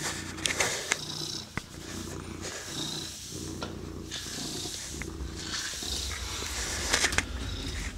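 Domestic cat purring steadily, a sign of contentment, with a few faint clicks over it.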